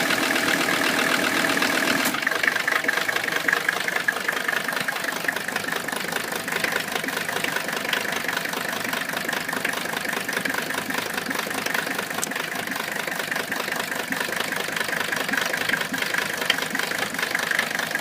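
Mercedes engine running with a rough idle, a sign of the fault that leaves the car with no power. The engine's note changes about two seconds in and then runs on unevenly.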